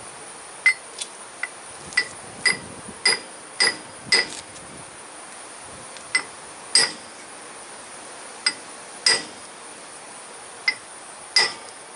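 Hammer blows driving a new S-cam bushing into its bore: about a dozen sharp, ringing metal strikes at uneven intervals, some in quick pairs, with a pause in the middle.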